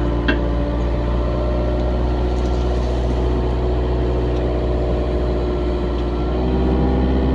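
Excavator's diesel engine running steadily, with a short click about a third of a second in.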